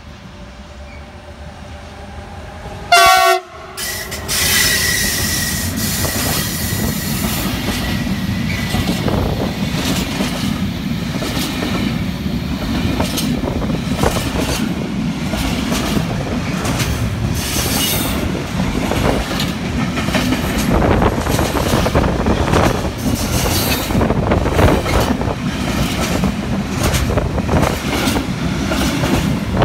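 Electric locomotive horn gives one short, loud blast about three seconds in. Then the freight train rolls past close by: a steady rumble of wheels on rails, a thin wheel squeal for a few seconds, and a run of rhythmic clacks as the wagons' wheels cross the rail joints.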